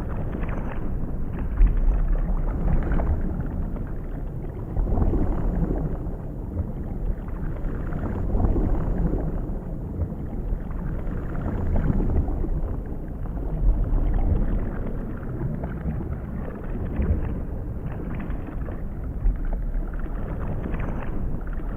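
Underwater ambience sound effect: a muffled, rumbling wash of water that swells and eases every few seconds.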